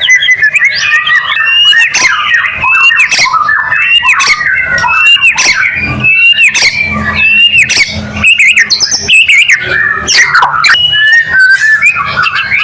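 White-rumped shama (murai batu) in full, continuous song: a rapid, unbroken run of loud whistled phrases, many rising and falling, mixed with sharp clicking and harsh notes.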